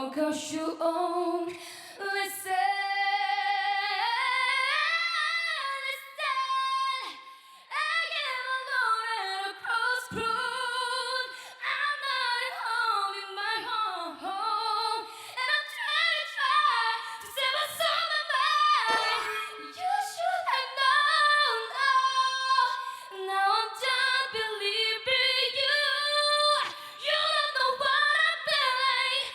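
A woman singing solo, largely unaccompanied, with wavering vibrato on held notes and quick melodic runs.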